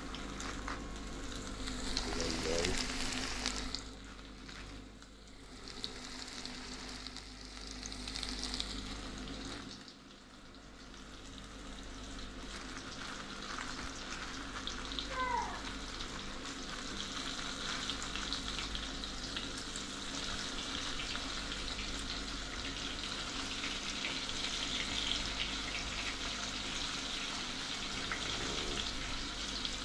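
Floured fish pieces frying in hot oil: a steady sizzle thick with fine crackles, dipping briefly about a third of the way in and then growing louder and denser.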